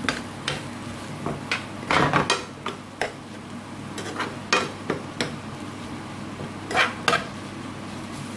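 A utensil stirring prawns and chunks of bottle gourd in a non-stick frying pan. Irregular scrapes and knocks against the pan sound over a soft, steady sizzle, with a cluster of louder scrapes about two seconds in and two more near seven seconds.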